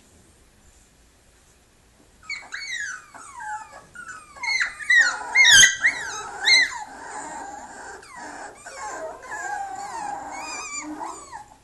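Eight-week-old papillon puppy whining and yelping in high-pitched, falling cries, starting about two seconds in and loudest around the middle, with a single bump about halfway.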